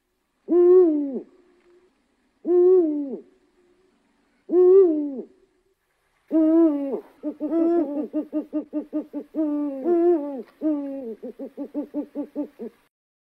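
Ring-tailed lemur calls: three separate drawn-out calls, each rising a little then falling, about two seconds apart. These are followed by a longer run of similar calls mixed with quick pulsed notes, about four or five a second, which stops shortly before the end.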